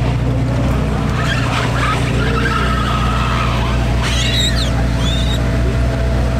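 Car engine running at low revs with a steady low rumble. High squeals, like tyres on a smooth surface, come twice: once in the first half and once about four seconds in.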